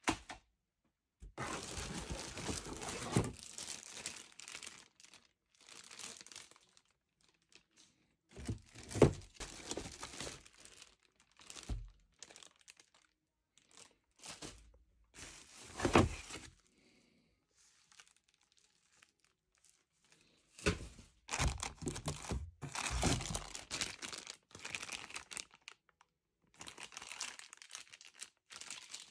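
Cardboard box and clear plastic bags being handled while unpacking: irregular bursts of crinkling plastic and cardboard rubbing and scraping, broken by quiet pauses, with a few sharp knocks from parts and box flaps.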